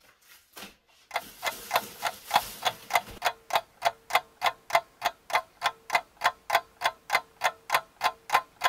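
Clock ticking evenly, about four ticks a second, starting abruptly about a second in, with a faint steady tone beneath it; a light plastic rustle sits under the first few ticks.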